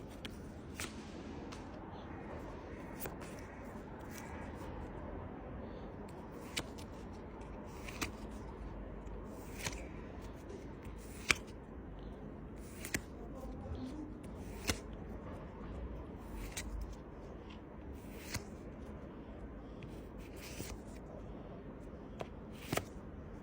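Pokémon trading cards being flicked through one at a time, each card giving a short crisp snap about every one and a half to two seconds over a steady low hum.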